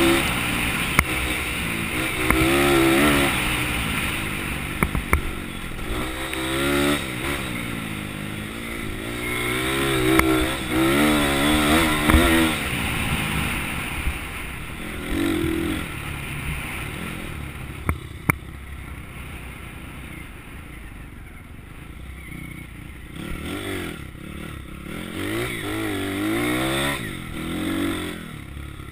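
Pit bike being ridden on a dirt trail, its small engine revving up and down as the throttle is opened and closed, with a few sharp knocks and clatters. In the later part the engine runs lower and quieter.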